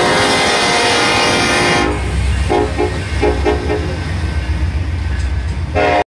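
Norfolk Southern diesel freight locomotives passing close by. The air horn holds a loud chord for about the first two seconds and stops, leaving the heavy low rumble of the engines and the rolling train, with a few brief tones in the middle. The sound cuts off abruptly just before the end.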